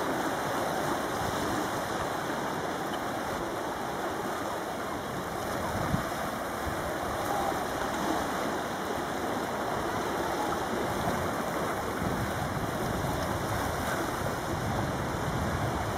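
Sea water washing over shoreline rocks and spilling into rock pools: a steady rushing wash, with one brief knock about six seconds in.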